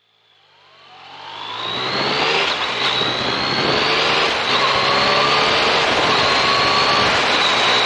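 Yamaha MT-09 Tracer's three-cylinder engine pulling the bike along the road, its note rising and then dropping back a few times as it shifts up, over a steady rush of wind. The sound fades in over the first two seconds.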